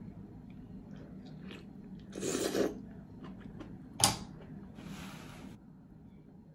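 Slurping a raw oyster and its juice from the shell: a half-second slurp about two seconds in, then a sharp click, the loudest sound, about four seconds in, and a shorter hissing suck after it, with faint chewing.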